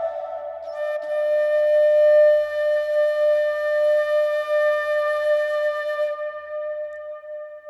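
Background music: a flute holds one long, steady note that fades near the end.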